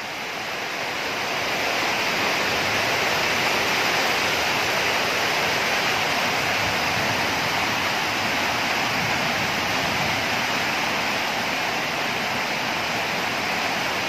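Heavy thunderstorm rain pouring down with strong wind: a loud, steady rushing noise that swells over the first couple of seconds and then holds.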